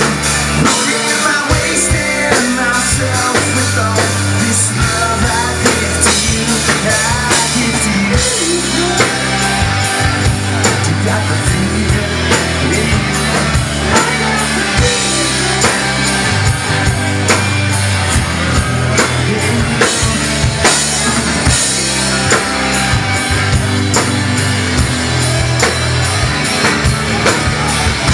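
Live rock band playing loud: electric guitars, bass guitar and a drum kit keeping a steady beat.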